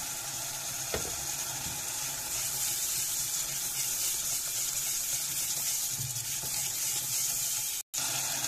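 Tomato, onion and bell-pepper sauce sizzling in a non-stick pot as it is stirred with a silicone spatula, a steady sizzle throughout. The sound cuts out for a moment near the end.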